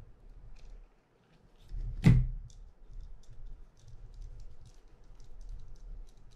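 Hands working on a spinning reel's shaft and nut: faint light clicks of small metal parts, and one sharp knock about two seconds in.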